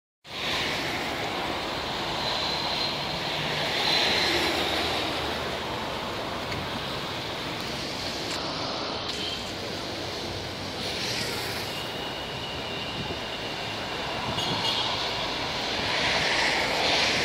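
Wind and sea surf breaking on a rocky shore and breakwater: a steady rushing noise that swells and eases, with a faint thin high tone twice.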